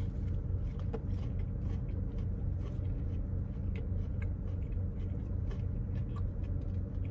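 Steady low hum of a car idling, heard inside its cabin, with faint scattered clicks and crunches of someone biting into and chewing a crispy chicken sandwich.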